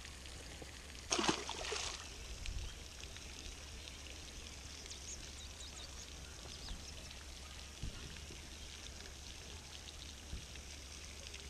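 Steady splashing of a small pond fountain spraying water, with one short louder splash about a second in.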